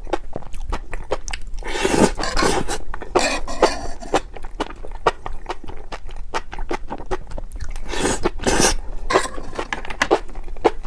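A person chewing and crunching food close to the microphone: a run of quick, sharp crunches, with two louder, longer stretches of crunching about two seconds in and about eight seconds in.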